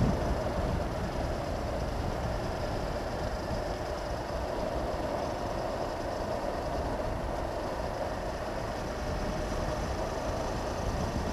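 Honda CB500X motorcycle at a steady cruise: the parallel-twin engine runs evenly under a constant rush of wind over the helmet-mounted camera.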